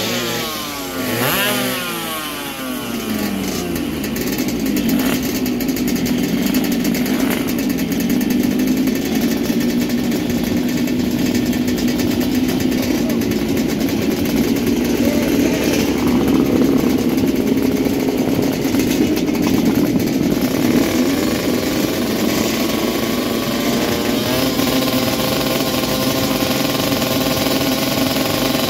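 Two-stroke drag-bike engines at the start line. The engine pitch falls sharply in the first couple of seconds, then the engines run in a steady, wavering drone with blips of revving, and revs rise again near the end.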